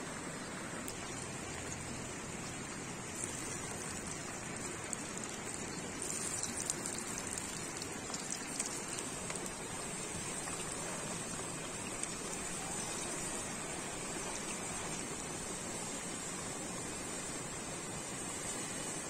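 Hot oil sizzling steadily in a frying pan on a wood fire as food fries.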